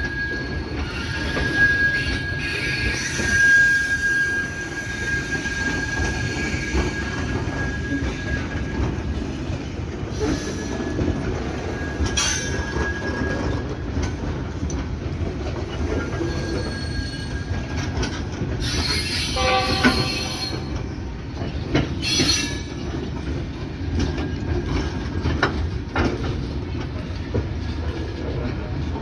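Freight wagons rolling past at close range: a steady rumble of steel wheels on the rails, with a high, steady wheel squeal through the first several seconds and a few sharp knocks around the middle.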